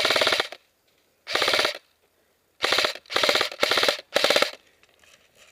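Airsoft gun firing short full-auto bursts: six rapid, even rattles of shots, each under a second long, the first already under way and the last ending a little after four seconds in.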